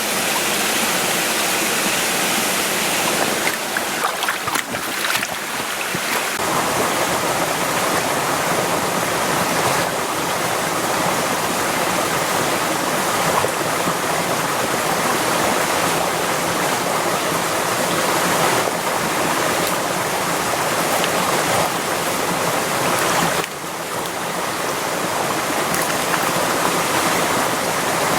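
Small mountain stream rushing and babbling over rocks, steady and close to the microphone. A few brief clicks come about four seconds in.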